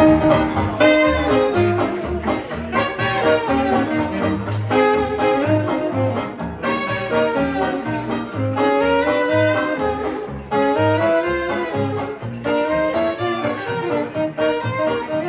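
Small traditional jazz band playing live in a swing rhythm: a saxophone or other horn carries the melody over a steady bass line, with banjo or guitar keeping time.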